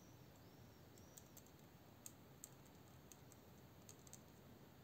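Near silence with a few faint, scattered small clicks as fingers work a wooden toothpick against the knife's metal pivot and handle.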